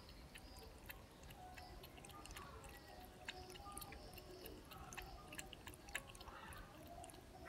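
Cat lapping water from a bowl: a quick, steady run of faint wet clicks from the tongue.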